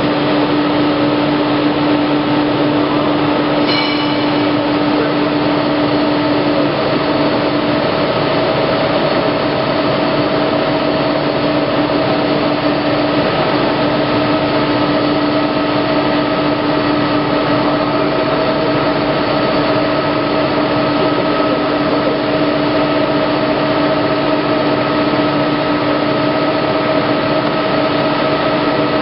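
Plate rolling machine running as its rolls turn a steel sheet into a cylinder: a steady mechanical hum with several held tones, the lowest of which fades out for a few seconds near the middle before returning.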